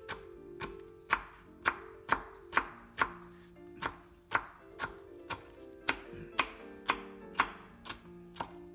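Chef's knife chopping banana peels on a wooden cutting board: sharp knocks of the blade on the board, about two a second, over quiet background music.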